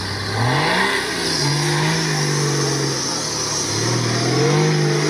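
Off-road buggy's engine revving up and held at high revs, dropping back briefly after about three seconds, then revving up again as the buggy crawls through swampy ground.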